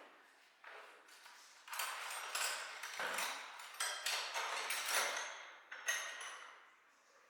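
A series of light metallic knocks and clinks as metal parts or tools are handled, a few ringing briefly.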